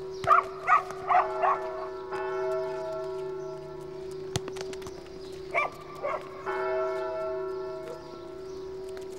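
A church bell tolls, restruck about every four seconds with a long ringing hum between strokes. Short barks, like a dog's, come in small groups near the start and again around the middle, and a single sharp knock comes about four seconds in.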